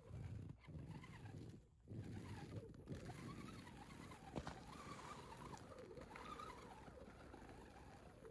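An RC crawler's electric motor and gears whine, wavering up and down in pitch with the throttle as the truck ploughs through deep snow. The whine cuts out briefly twice in the first two seconds.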